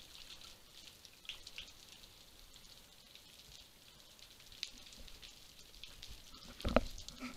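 Underwater ambience on a rocky reef: a faint, steady crackle of scattered small clicks. About a second before the end comes a short cluster of louder knocks and bumps.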